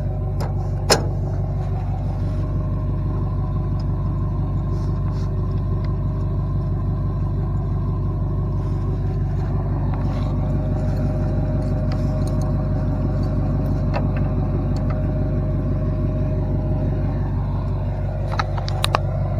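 Truck engine running steadily with a low, even drone, the vehicle hitched to a cattle trailer. A single sharp knock about a second in and a few clicks near the end.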